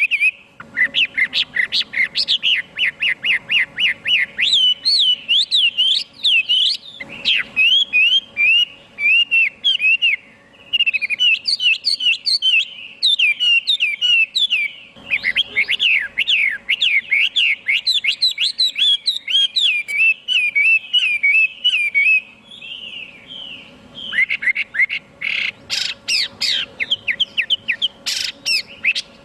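Chinese hwamei (họa mi) singing a long, varied song of rapid repeated whistled notes and trills, with a few brief pauses; the notes turn sharper and higher near the end.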